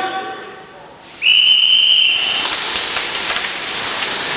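A single sharp whistle blast, about a second long, on one steady high pitch. After it comes a loud steady hiss with scattered faint clicks.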